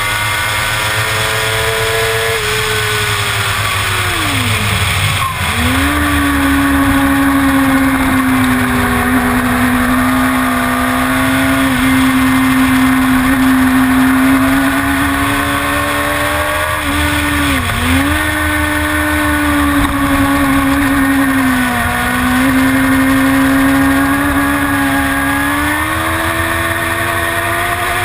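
A Suzuki GSX-R750's inline-four engine at race pace, heard onboard. The engine note falls steeply about three to five seconds in, then jumps back up and mostly holds steady, with two brief dips later on and a rise near the end, over a low rush of wind.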